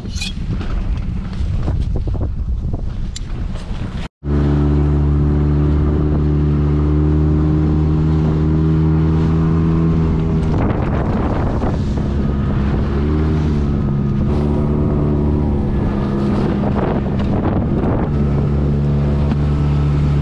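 Wind buffeting the microphone for about four seconds. Then, after a brief cut, a small outboard motor runs steadily at speed, pushing an inflatable boat through choppy water, its pitch wavering slightly a couple of times.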